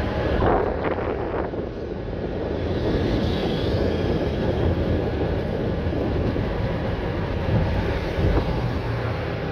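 Konstal 105N2K tram running, a steady rumble of wheels on rails and traction equipment, with a brief louder rush of noise about half a second in.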